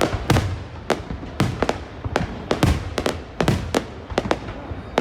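Aerial fireworks bursting in quick, irregular succession, about two to three booms a second, each with a short low rumble after it.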